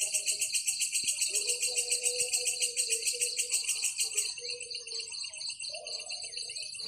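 Insects chirping in a fast pulsing chorus, about seven pulses a second, which changes a little after four seconds to a softer, denser trill; a low tone comes and goes underneath.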